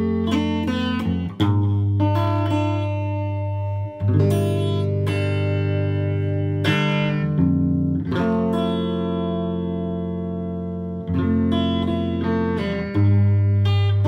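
Electric guitar being played: chords and notes struck and left to ring out, with a new chord every few seconds.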